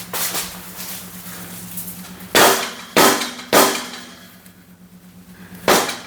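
Hammer striking steel with sharp metallic clangs: three blows about half a second apart, then a fourth near the end.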